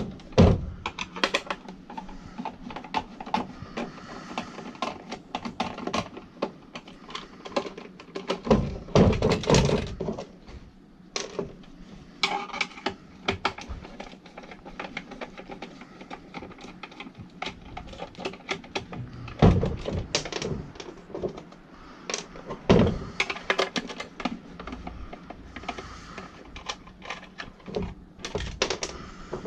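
Screwdriver work on a plastic car vacuum housing: irregular clicks and rattles of the screwdriver and plastic shell as screws are backed out, with a few louder knocks as the housing is handled.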